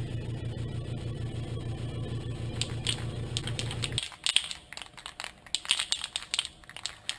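A spray can of primer being shaken, its mixing ball rattling in quick clicking bursts. Under the first part a steady low hum runs and cuts off suddenly about four seconds in.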